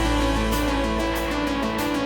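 Background music: a guitar-led track with a steady low bass and a repeating pattern of held notes.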